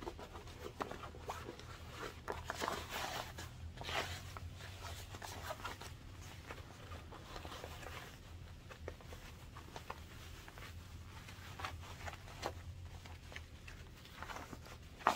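Fabric rustling and scraping as a sewn bag with a waterproof canvas lining and a cotton outer is turned right side out by hand, with irregular crinkling scrapes and small clicks. A faint steady low hum runs underneath.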